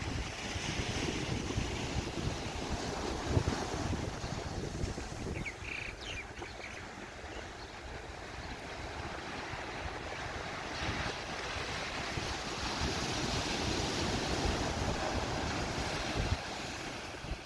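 Ocean waves washing onto the shore, with wind buffeting the microphone. The surf swells louder in the second half.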